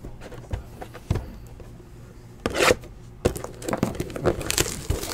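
Cardboard trading-card hobby box and its wrapped packs being handled: a few knocks and scrapes, a loud rustle about two and a half seconds in, then a run of quick rustles and taps.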